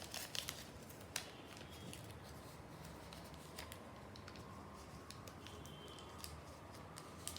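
Faint, scattered rustles and crinkles of a square sheet of origami paper being handled and creased by hand while an inside reverse fold is made, with a few sharper paper clicks.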